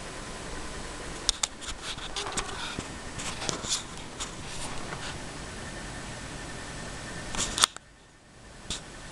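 Scattered small clicks and rustles over a steady background hiss, with a louder click about seven and a half seconds in.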